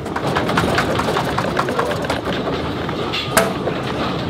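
Deep, steady rumbling noise with crackles and clicks, and one sharp crack about three and a half seconds in: the rumble of the 1976 Friuli earthquake striking.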